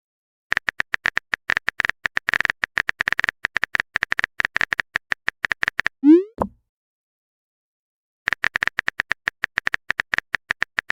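Rapid, uneven clicking of a phone keyboard typing sound effect, each tap a short click with a bright tone. It stops around six seconds with a short rising blip, falls silent for about two seconds, then the clicking starts again.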